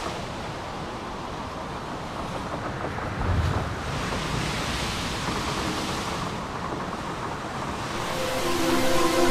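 A wash of filtered noise in an electronic music soundtrack, swelling and fading, with a low thump about three seconds in; sustained synthesizer notes come in near the end.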